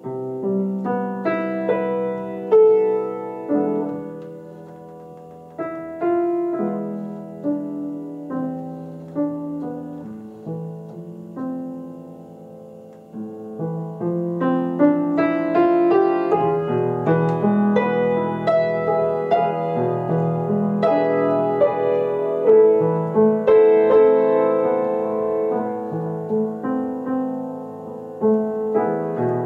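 Upright acoustic piano playing a slow, jazz-style solo piece, with struck notes and chords left to ring. It is soft at first and grows fuller and louder from about halfway through.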